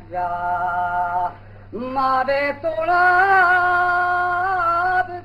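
A voice singing a slow, chant-like folk song in long held notes, breaking off about a second and a half in, then resuming and holding a note until near the end, over a steady low hum.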